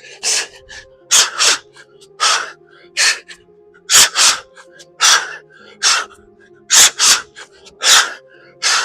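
A person exhaling sharply and forcefully, about one hard breath a second, in time with fast plyometric reps.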